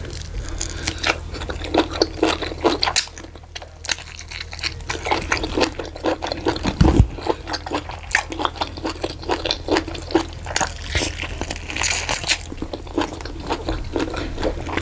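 Close-miked eating sounds: a person chewing and biting cooked meat, with many small wet clicks and crunches. There is one louder low thump about seven seconds in.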